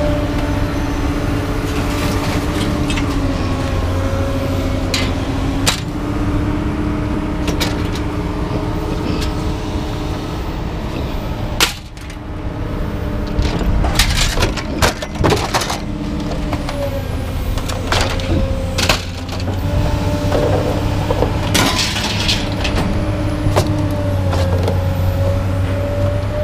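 A vehicle engine running steadily, with intermittent sharp clanks and cracks of scrap being handled, several in quick succession midway through.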